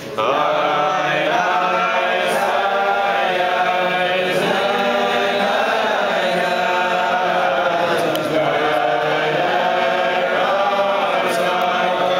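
A large group of men singing a Selichos prayer melody together, many voices at once, loud and continuous.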